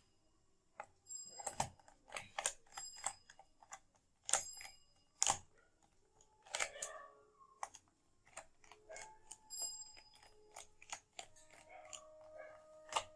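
Small screwdriver tightening the bottom-cover screws of a Lenovo Ideapad 330 laptop: irregular light clicks and taps of the tool on the screws and plastic cover, a few with a short metallic ring.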